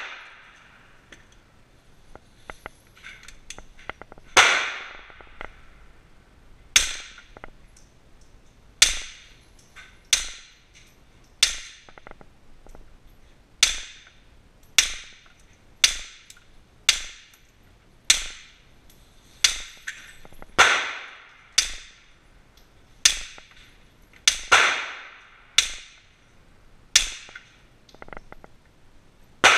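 Smith & Wesson M&P9L Pro Series CORE 9mm pistol fired through an AAC suppressor in slow, steady single shots, about one every second to second and a half, some seventeen in all. Each report is a sharp crack with a short echoing tail in the indoor range. A few light handling clicks come before the first shot.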